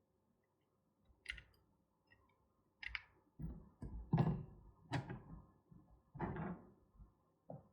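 Small clicks and knocks from handling the car remote key and its coin battery, about seven separate ones spread over several seconds, as the battery is got out for measuring.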